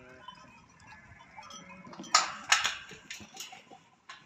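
A faint livestock bleat trailing off at the start, then a quick run of sharp knocks and clatter about two seconds in, with one more click near the end.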